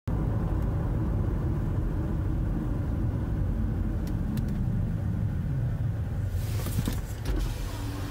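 Car moving in slow traffic: a steady low rumble of engine and road noise. A few faint clicks come near the middle, and a hiss grows from about six seconds in.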